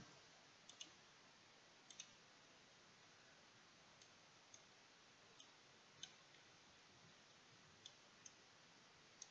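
Near silence broken by about a dozen faint, irregular clicks from a computer mouse and keyboard, some coming in quick pairs.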